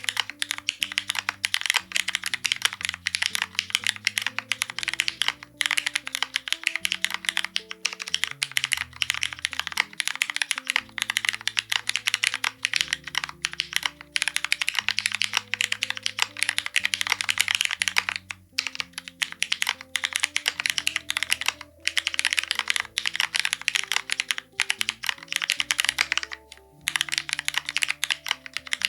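Fast, continuous typing on a Bina 103 mechanical keyboard with linear Cherry MX Black Hyperglide switches on an aluminium plate and GMK keycaps, with a few brief pauses. Soft background music plays under the keystrokes.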